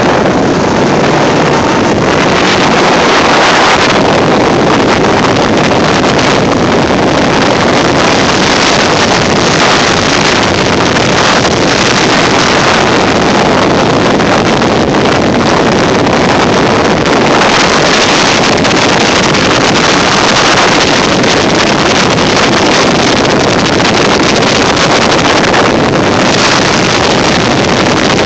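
Motorboats running at speed, a steady loud rush of engine and water noise, with heavy wind buffeting on the microphone.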